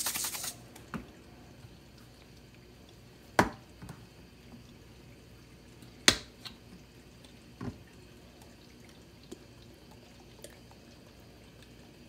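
Shaken rub ending just after the start, then a few sharp clicks and knocks of seasoning containers being handled, the loudest about three and a half and six seconds in, with quiet in between.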